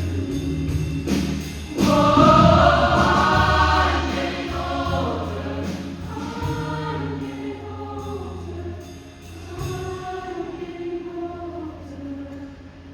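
Show choir singing in many-voiced harmony over instrumental accompaniment, swelling loud about two seconds in and then easing down.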